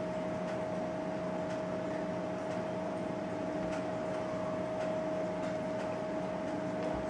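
Steady room tone: an even hiss with a constant mid-pitched hum running unchanged.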